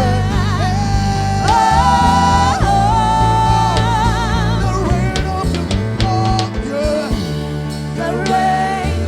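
Gospel song: a singer holds long notes with vibrato over a steady bass line and drums.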